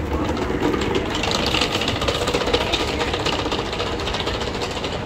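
An engine running steadily with a fast, even rattle.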